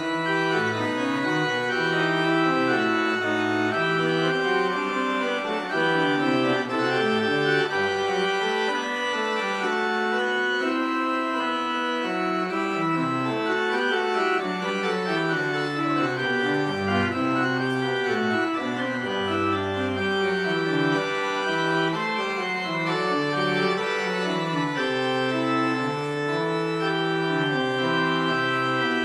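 Church pipe organ playing a continuous piece: sustained chords over a moving bass line, at a steady level.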